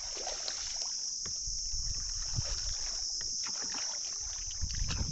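Water splashing and lapping around a small wooden river boat, with scattered small knocks. Over it runs a steady high-pitched shrill drone, like an insect chorus.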